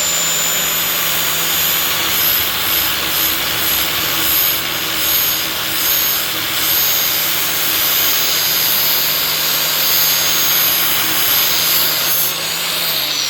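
Angle grinder with a flap disc grinding the cutting edge of a steel mower blade: a steady motor whine under a loud, rough grinding hiss. About 12 seconds in the grinding stops and the grinder winds down, its pitch falling.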